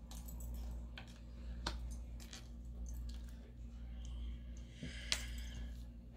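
Tarot cards being handled and laid on a wooden table: a few light, scattered clicks of card against card and tabletop, over a low steady hum.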